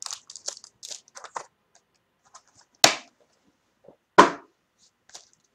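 Trading card box and foil-wrapped pack being handled on a desk. Light crinkling and small clicks, then two sharp knocks about a second and a half apart.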